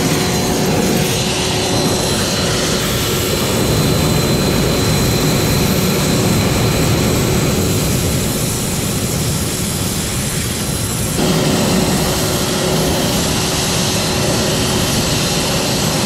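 Steady, loud rushing roar of a high-pressure steam jet blasting from a mono-tube flash boiler's nozzle, with the burner firing beneath the coil. The jet's thrust is strong enough to push the thermocouple probe around. The sound grows a little louder about eleven seconds in.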